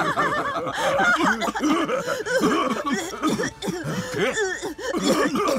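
Cartoon villains laughing together, a woman's and men's voices overlapping in a continuous, mocking laugh.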